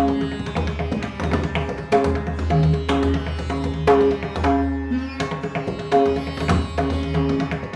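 Rudra veena playing Dhrupad: a fast, rhythmic run of plucked notes struck in quick succession over the instrument's low bass strings.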